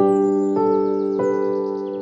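Slow, soft piano music with long held notes, a new note sounding about every half second, while birds chirp in quick high trills over it.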